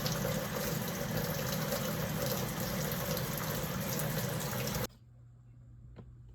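Water running steadily from a tap into a sink, shut off suddenly about five seconds in, with a faint click near the end.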